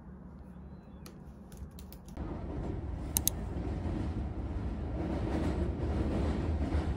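A few taps on a laptop keyboard. About two seconds in, they give way to the steady rumble and rush of a train ride, which grows louder, with a sharp double click near the middle.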